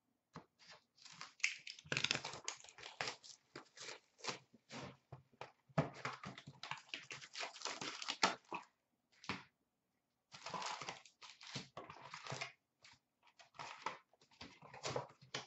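Foil wrappers of Upper Deck Series Two hockey card packs crinkling and tearing as the packs are handled and ripped open. Irregular rustles and crackles, with a short lull about two-thirds through.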